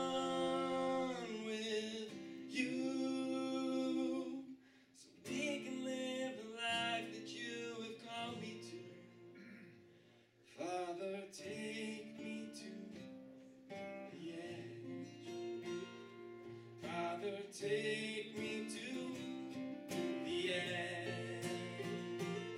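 Live acoustic band: strummed acoustic guitars under men singing long held notes, with brief pauses between phrases.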